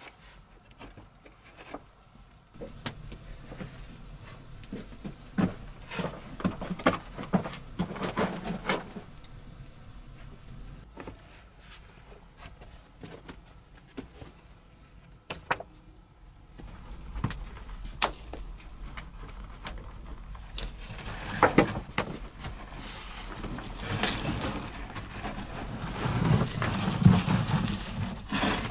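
Wooden pole door being handled and fitted into a stone wall: scattered knocks, clacks and scrapes of wood on wood and stone, growing busier and louder near the end.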